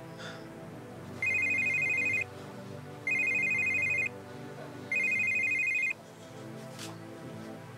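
Mobile phone ringing: three rings of about a second each, a high electronic tone with a fast flutter, over soft background music.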